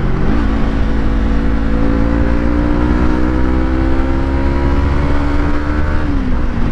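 2020 Yamaha MT-03's 321 cc parallel-twin engine under way, its note climbing slowly as the bike gathers speed, then dropping about six seconds in as the throttle eases. A steady low wind rumble runs under it, heard from the rider's helmet-mounted mic.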